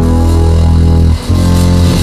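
Loud, low sustained organ chords: one held chord breaks off a little over a second in and a new one is held.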